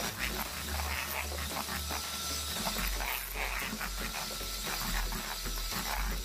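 Electric hand mixer running steadily, its beaters churning a thick butter-and-egg cake batter in a stainless steel bowl.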